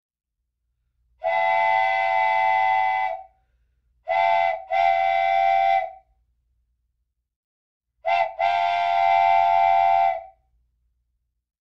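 A whistle sounding a steady-pitched chord in three groups: one long blast about a second in, then a short and a longer blast, then a short and a longer blast again near the end.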